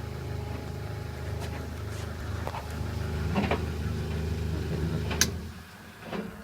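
White Knight 447WV vented tumble dryer running its reverse-tumble sequence: a steady motor hum with the drum turning and a few light knocks. A sharp click comes about five seconds in, and the motor hum then drops away as the drum stops.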